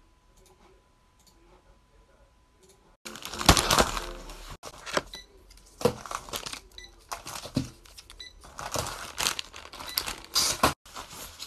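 Crinkling and rustling of plastic handled close to the microphone, in loud irregular bursts that start about three seconds in.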